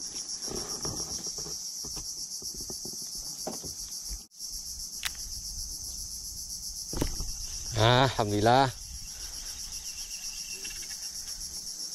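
Steady, high-pitched insect chorus, a continuous rapid pulsing trill. A man's voice breaks in briefly about eight seconds in.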